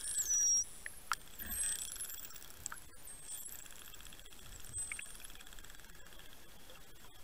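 Short-beaked common dolphins whistling underwater: several high whistles that rise and fall and overlap, the strongest in the first second and again about four to five seconds in, with scattered sharp clicks between them.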